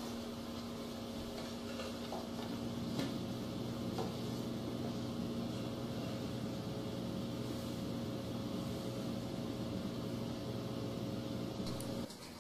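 A steady low hum with a few faint clicks, ending abruptly near the end.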